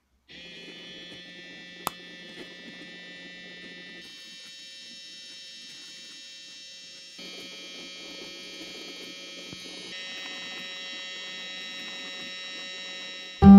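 Small DC gearmotor driving a pair of 3D-printed plastic crossed helical gears, running with a steady high-pitched whine over a low hum; the whine changes in pitch and loudness in steps a few times. A single sharp click about two seconds in.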